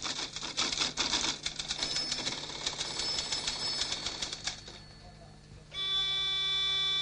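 Office typewriter clattering in rapid keystrokes, thinning out about four and a half seconds in. Near the end a steady electronic buzzer tone sounds for about a second and a half and cuts off suddenly.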